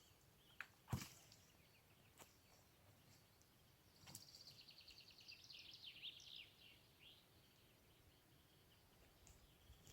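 Faint outdoor ambience with a bird singing a rapid, high, repeated phrase in the middle. A single sharp click comes about a second in, with a few fainter ticks.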